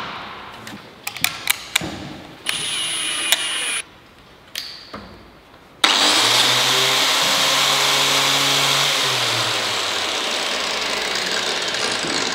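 Knocks and a short whir of a cordless drill-driver, then about halfway through a motor-driven machine starts abruptly and keeps running steadily, a loud hiss over a low hum.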